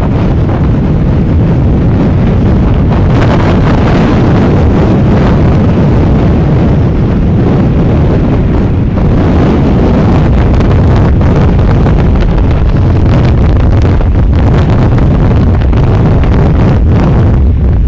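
Strong wind buffeting the microphone in a loud, steady rumble, over Mediterranean sea waves washing ashore.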